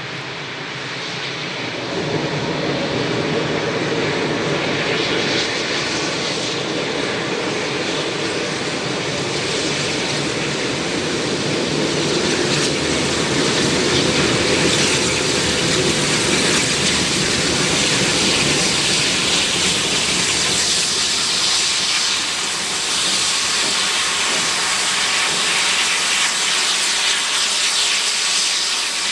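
Double-headed steam locomotives drawing slowly closer, with a loud, steady hiss of escaping steam that grows brighter from about halfway through.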